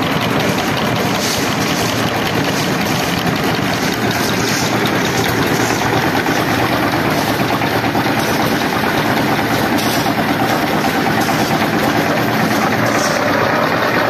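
Engine of a concrete mixer machine running steadily, driving the belt-driven mixing drum and hoist.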